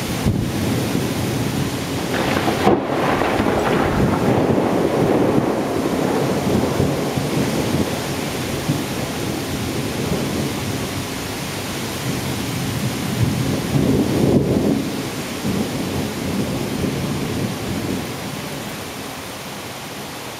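Heavy thunderstorm rain pouring steadily, with thunder rumbling. The rumble swells a couple of seconds in and again about two-thirds of the way through, then eases off near the end.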